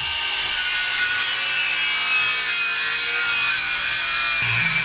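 Handheld electric power tool working a plywood panel, its motor running steadily with a high whine as it cuts into the wood. A deeper hum joins in about four and a half seconds in.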